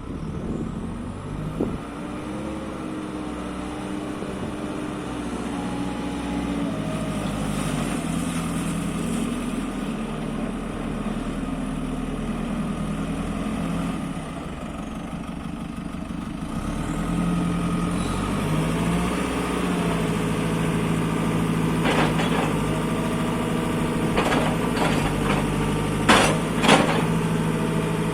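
JCB 3CX backhoe loader's diesel engine running, its note stepping up and down in pitch a few times as it is revved or loaded. Several sharp knocks sound in the last third, the loudest two close together near the end.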